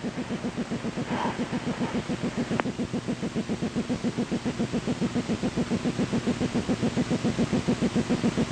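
Rhythmic rubbing hum with a fast, even pulse on the NOAA Weather Radio transmitter KHB32's signal, heard through the stream during dead air. The uploader traces the noise to the station's antenna and suspects a fault that needs troubleshooting.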